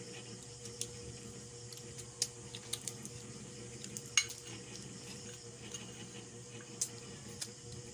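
Scattered light clinks and clicks of cutlery against dishes during a meal, the sharpest about four seconds in, over a steady low hum.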